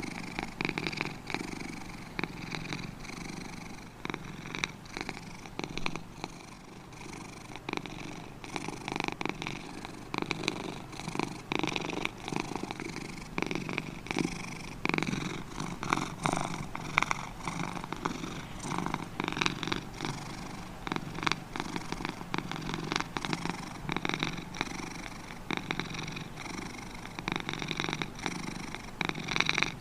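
Sleeping kitten snoring: a steady rumbling, purr-like sound that swells and fades unevenly.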